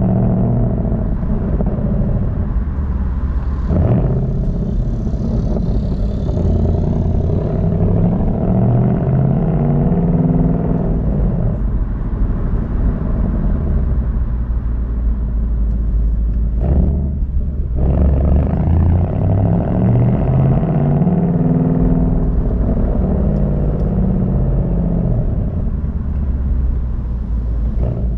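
Ford Mustang GT's 5.0-litre V8 exhaust running as the car is driven, its note climbing as it accelerates and falling back as it eases off, with short breaks about four and seventeen seconds in.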